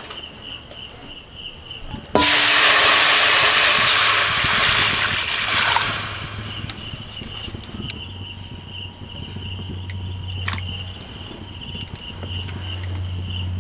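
Water poured into a hot iron wok over a wood fire, hissing loudly as it flashes to steam. The hiss starts suddenly about two seconds in and dies away a few seconds later.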